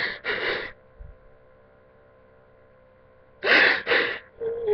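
A person crying: two heaving sobbing breaths, a pause of about three seconds, then two more. A wailing sob starts near the end.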